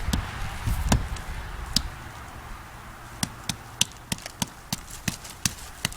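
Hammer striking a tree trunk: a few scattered sharp knocks, then a steady run of blows about three a second in the second half.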